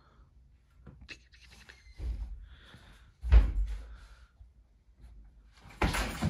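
Wooden interior door being opened, with clicks and rustling, a loud thud a little past three seconds in, and a louder burst of commotion near the end.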